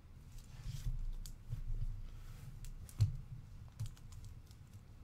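Scattered light clicks and taps of hands handling plastic card holders and sleeves on a desk, with one sharper tap about three seconds in.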